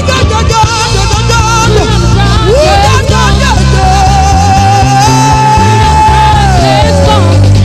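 Worship music: a solo voice sings a wordless, wavering melody over steady low sustained chords, with quick ornamented runs, then holds one long note from about halfway that slides downward near the end.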